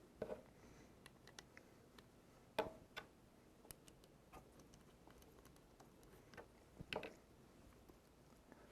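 Near silence broken by a few faint, scattered clicks and ticks of screws being driven into a replacement hard drive, the clearest about two and a half seconds in and again near seven seconds.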